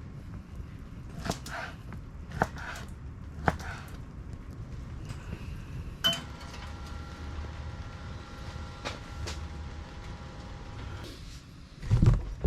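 Cookware being handled: three sharp knocks about a second apart, then a metal clank with a faint ringing tone that hangs for several seconds, and a heavy thump near the end, as a pan is set on to heat.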